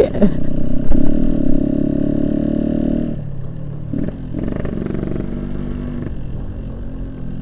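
Yamaha RX-King two-stroke single-cylinder motorcycle engine running on the move, a steady note that drops lower and quieter about three seconds in.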